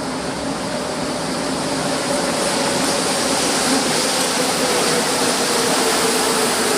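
A moving vehicle: a steady rushing noise with a faint hum that slowly drops in pitch.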